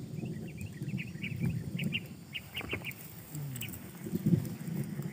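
Birds chirping: a quick series of short, high calls through the first three seconds and one more call later, over a low rumble.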